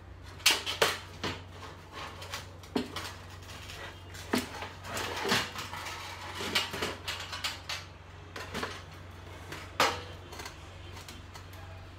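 Sheet-metal top of an electric cooktop being lifted and swung up on its hinge: a string of metal clanks and rattles, loudest just after the start and again near the end.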